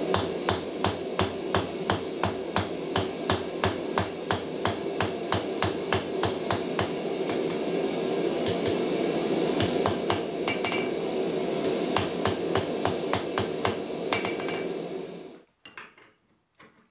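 Hand hammer striking red-hot steel on an anvil, blows coming about twice a second with a brief pause partway through, over a steady rushing noise. The hammering and the rushing stop suddenly near the end, leaving a few light clicks.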